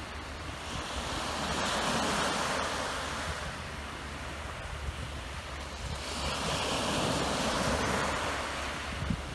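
Sea waves breaking and washing up the beach, two swells about five seconds apart, with wind buffeting the microphone.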